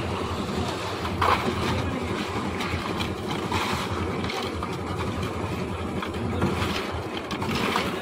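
A concrete mixer machine's engine running steadily. A few short scrapes and clinks of shovels and metal pans handling wet concrete stand out now and then.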